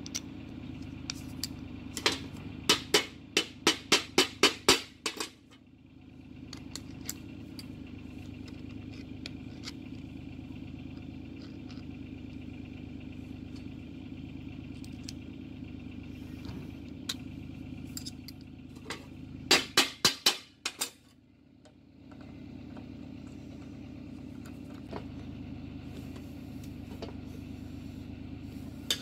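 Metal parts of a hand-built RC axle clicking as nuts and bolts are fitted to the hub flange, in two quick runs of sharp, evenly spaced clicks: one a few seconds in and another about two-thirds of the way through. Under them runs a steady low hum.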